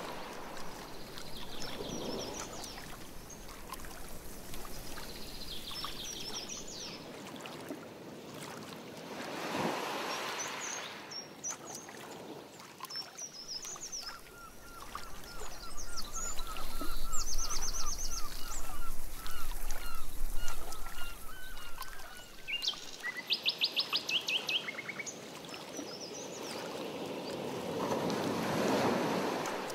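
Canoe paddle strokes swishing through lake water now and then, with birds calling from the shore: a long run of rapid repeated calls in the middle, the loudest part, and several high trills and chirps.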